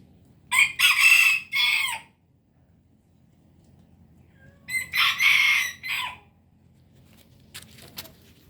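A rooster crowing twice, each crow about a second and a half long and made of several linked notes, a few seconds apart. A few faint clicks follow near the end.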